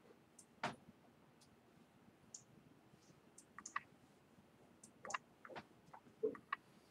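Faint, irregular clicks and small taps, about a dozen of them, over quiet room tone; the strongest come about a second in and near the end.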